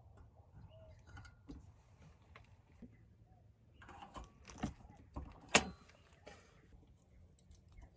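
Metal clicks and rattles of hitch hardware being fitted into a bike carrier's hitch mount, with a sharp metallic clank about five and a half seconds in.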